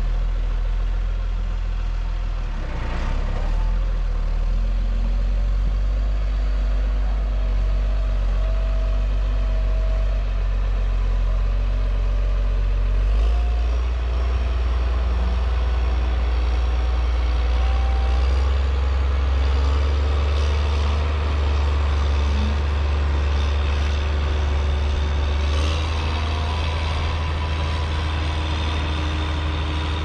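Caterpillar 120H motor grader's diesel engine running steadily while working, with a change in its low drone about 13 seconds in.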